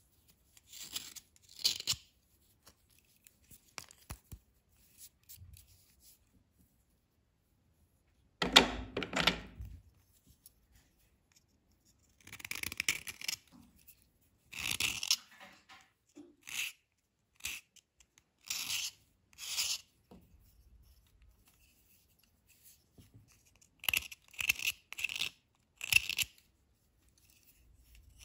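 Knife blade scraping a dry white chalky bar in short, scratchy strokes with quiet pauses between them. The loudest is a longer, fuller scrape about nine seconds in.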